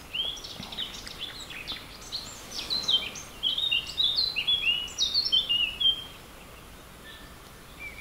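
Songbirds singing: quick chirped and whistled notes, ending about six seconds in with a fast run of notes that step down in pitch.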